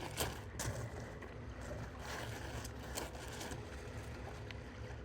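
Steady low outdoor rumble of wind and sea with a few light clicks and knocks in the first three seconds.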